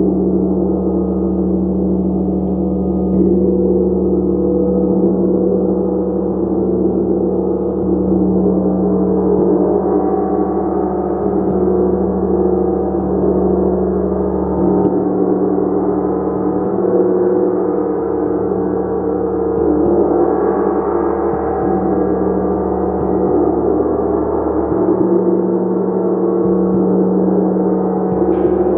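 Gong played continuously in a dense, sustained wash of overlapping shimmering tones, with a strong low hum that keeps swelling without breaks.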